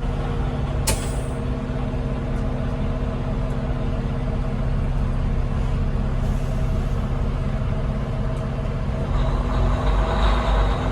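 Fire truck's diesel engine running steadily, a low even hum that gets a little louder near the end. A single sharp click sounds about a second in.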